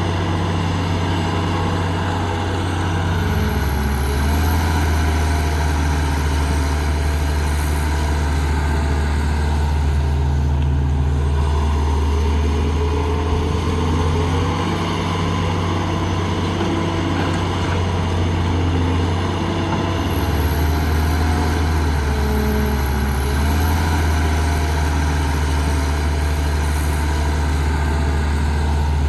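Diesel engine of heavy earthmoving machinery running hard, its low drone shifting in pitch and load a few times, with a faint high whine rising and falling over it.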